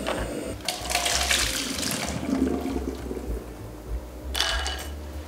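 Water splashing and sloshing as cooked shrimp are moved from a pot of boiling water into an ice-water bath. There is a longer stretch of splashing about a second in and a short splash about four seconds in.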